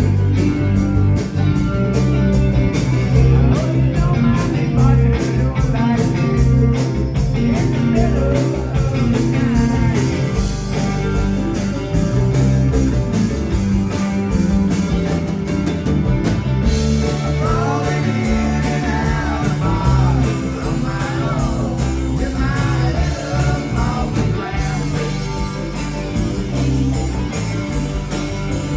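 Rock band playing live: electric guitar and drum kit at full volume, with singing.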